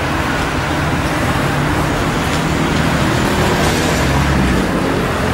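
Street traffic: a steady wash of passing road vehicles with the low hum of engines running.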